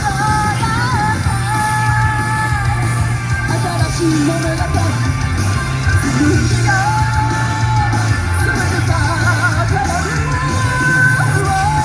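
Live rock music at a concert: a singer's long held, wavering notes over loud band backing with heavy bass, picked up by a phone's microphone in a large hall.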